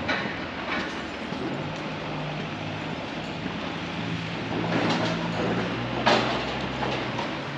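Train running: a steady rumble, a low hum that comes in after about a second, and a few sharp knocks, the loudest about six seconds in.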